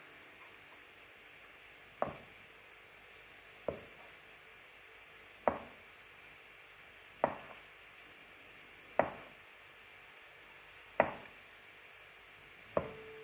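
Kitchen knife slicing through a sausage and knocking on a wooden cutting board: seven sharp knocks, one about every two seconds.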